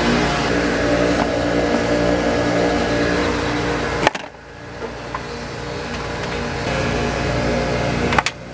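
Steady droning hum of optical-lab machinery. It breaks off twice, about four and eight seconds in, with a click, then drops and slowly builds back.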